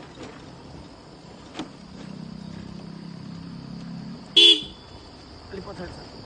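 A scooter's horn gives one short toot about four and a half seconds in, the loudest sound, over a low motor hum while riding.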